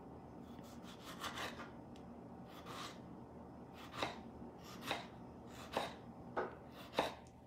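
Kitchen knife slicing a tomato on a wooden cutting board: about ten short cutting strokes and taps, irregularly spaced.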